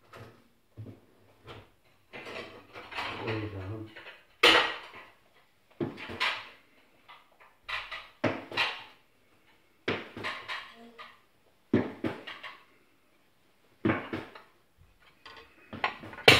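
Dishes and cutlery clinking and clattering as a dishwasher is unloaded: a string of sharp knocks and clinks, one every second or two, as crockery and utensils are lifted out and set down.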